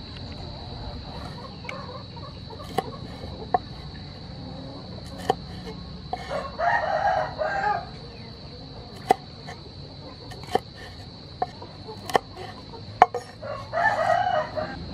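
A rooster crowing twice, each crow about a second and a half long. Between and under the crows come single sharp knocks of a cleaver striking a wooden cutting board as small red chilies are sliced.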